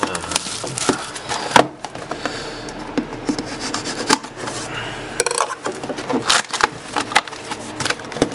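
A knife blade scraping and slitting open the top of a cardboard trading-card box, with rustling, rubbing and repeated sharp clicks and taps as the box and card packs are handled on a hard tabletop.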